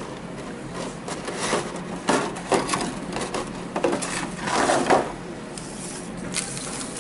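Clear plastic packaging of a trading-card box being handled: irregular crinkling and clicking, busiest from about one to five seconds in.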